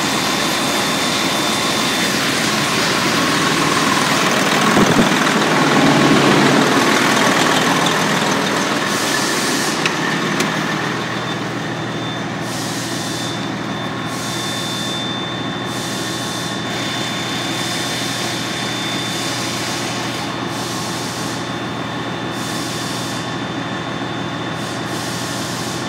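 Detroit Diesel Series 60 12.7-litre inline-six diesel engine idling steadily. It swells a little around five seconds in, then settles back, with a thin, steady high whine above it.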